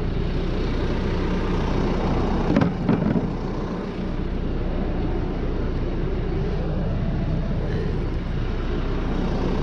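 Band sawmill's engine running steadily, with a brief clatter about two and a half to three seconds in.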